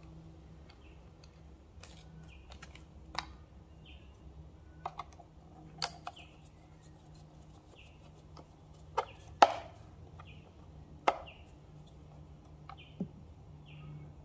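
Screwdriver and small parts clicking and knocking against the plastic instrument cluster housing as the screws holding the lighting circuit board are undone, a few scattered sharp taps. The loudest taps come a little past the middle. A low steady hum runs underneath.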